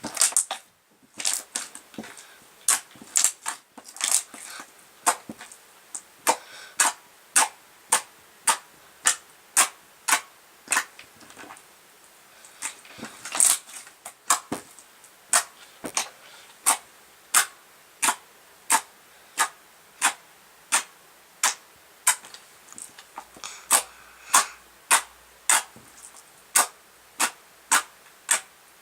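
Slime being pressed and folded by hand, trapped air popping with sharp clicks about one and a half times a second.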